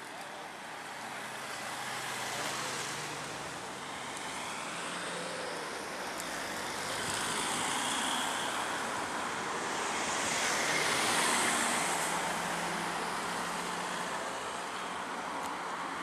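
Road traffic on a city street: cars driving past in a steady wash, swelling louder as vehicles pass close about seven and again about ten to eleven seconds in.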